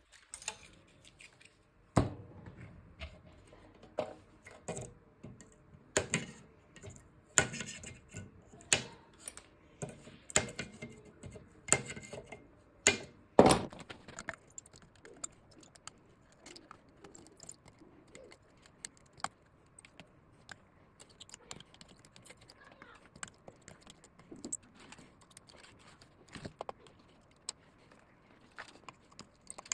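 Irregular sharp clicks and light knocks of tools and small parts being handled on a repair bench. They come close together in the first half, the loudest near the middle, then give way to fainter tapping and rattling.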